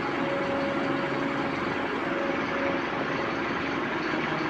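Engine idling steadily: an even running noise with a constant hum in it.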